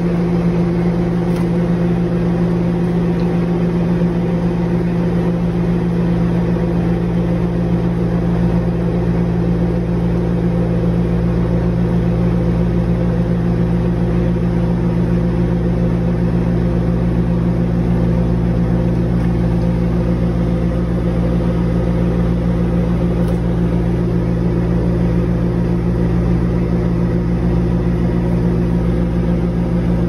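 Microwave oven running: a steady hum that holds unchanged throughout.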